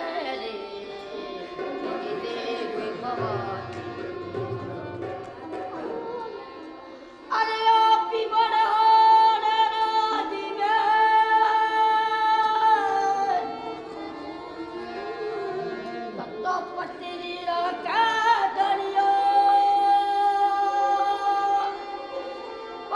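Indian classical-style music: a voice sings long held notes with gliding ornaments, getting much louder about seven seconds in.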